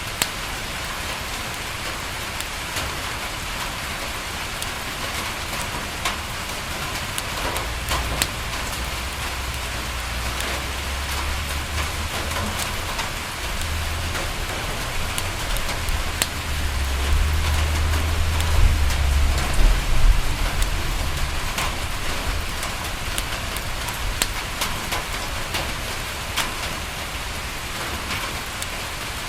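Steady rain falling on a window, with scattered sharp drop taps. A low rumble of distant thunder swells from about seven seconds in, is loudest some way past the middle, then fades out.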